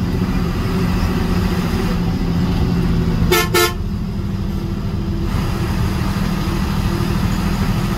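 Steady rumble of a bus travelling at road speed, with two short horn toots close together about three and a half seconds in.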